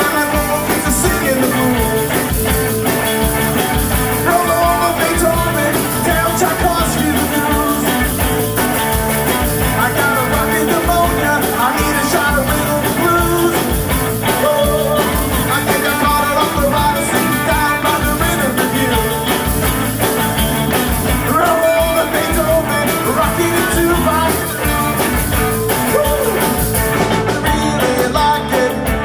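Live rock band playing a rock-and-roll number: electric guitars, electric bass and drum kit.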